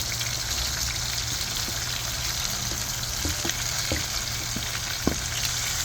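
Oil sizzling steadily in a cooking pan, with a few light ticks scattered through it.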